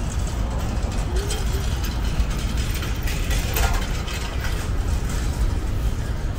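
Outdoor ambience: a steady low rumble with faint human voices.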